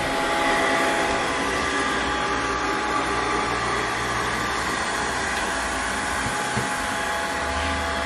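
Budget Five Below robot vacuum running: a steady, loud motor whine over the hiss of its suction fan, with one light knock about six and a half seconds in.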